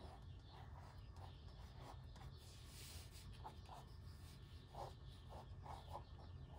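Mechanical pencil sketching on the cream paper of a sketchbook: faint, short, irregular scratching strokes.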